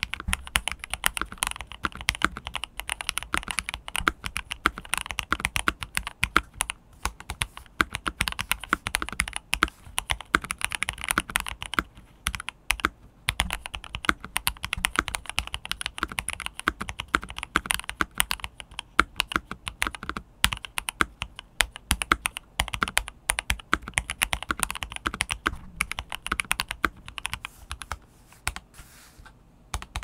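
Continuous fast typing on a lightly modded HexGears Soda68 mechanical keyboard with Gateron Silver linear switches and PBT double-shot Cherry-profile keycaps: a dense, uneven run of key presses, with a pause of about a second near the end.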